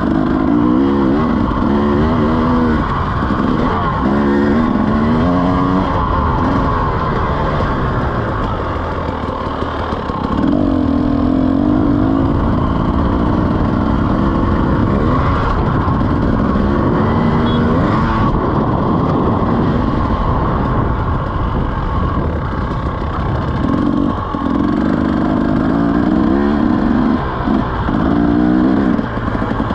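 KTM 300 two-stroke enduro bike engine under way on a dirt track, its revs climbing and dropping again and again as the rider works the throttle. It eases off in a couple of quieter stretches in the middle.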